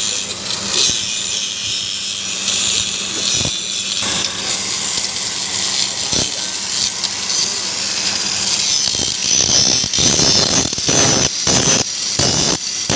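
Power grinder running and cutting or grinding, with a steady high hiss over a low motor hum; from about nine seconds in the grinding turns louder and rougher.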